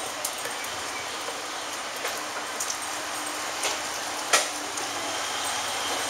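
Steady outdoor background noise with a few scattered light clicks or taps, the sharpest about four seconds in.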